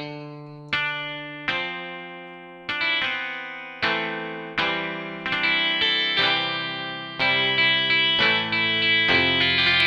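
Sampled Fender Stratocaster 'bridge twang' notes from a sample library: single electric-guitar notes picked one after another, each ringing out and fading. The notes come closer together and overlap in the second half.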